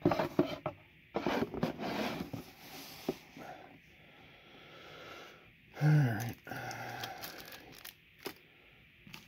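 Cardboard Elite Trainer Box being handled: scrapes, rubs and light knocks as the box and its lid are moved and set down. About six seconds in, a short low vocal grunt with falling pitch and a brief hum from a man's voice.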